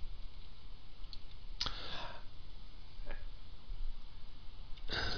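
Computer keyboard keystrokes: a few separate clicks, spread out with pauses between them, as a command is typed.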